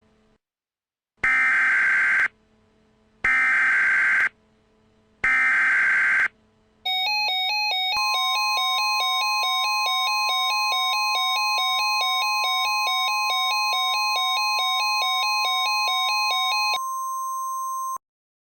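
Emergency Alert System alert: three one-second screeching SAME digital header bursts, a second apart, then an electronic alert tone of two pitches alternating rapidly. A steady high tone joins the alert tone and continues alone for its last second before cutting off.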